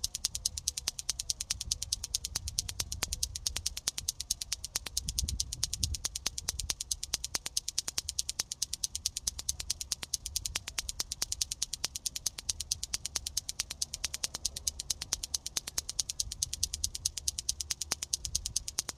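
Clackers toy, two plastic balls on cords swung up and down so they strike each other, making a fast, steady run of sharp clacks, several a second.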